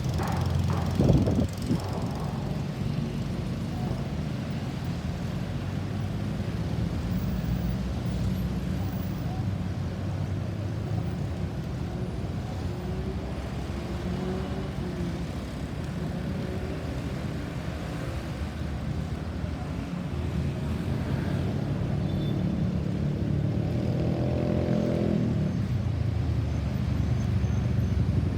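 Street traffic: a steady rumble of vehicle engines and tyres, with a sharp thump about a second in and a vehicle growing louder near the end.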